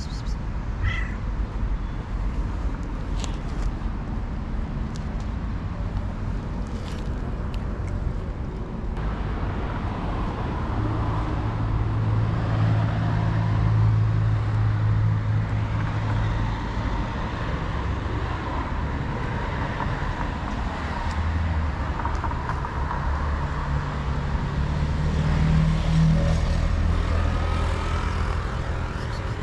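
Street traffic noise: a steady rumble of passing cars, with a deeper engine hum from a vehicle swelling twice in the second half.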